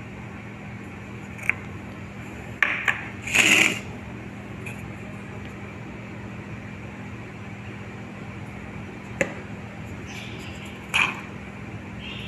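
Spice jars and bottles being handled on a stone kitchen counter: a few sharp clicks and knocks, with a louder half-second rustle about three and a half seconds in, over a steady low hum.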